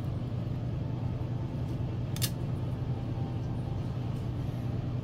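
Steady low background hum, with a single short click about two seconds in as small metal parts of a model crawler chassis are handled.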